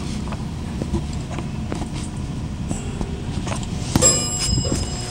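A steady low rumble with scattered light knocks. About four seconds in comes a sharp metallic clink that rings briefly in several high tones.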